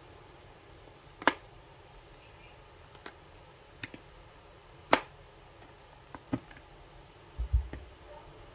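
Sharp clicks and taps from handling a card deck's box, with two louder clicks about a second and about five seconds in, several softer ones between, and a dull low thump near the end.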